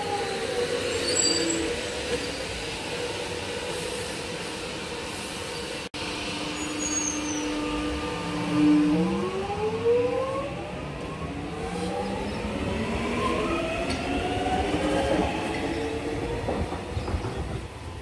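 Electric suburban train pulling out of the station: its traction motor whine holds a steady tone, then several whining tones climb together in pitch as the train accelerates away. Wheel and rail rumble runs underneath.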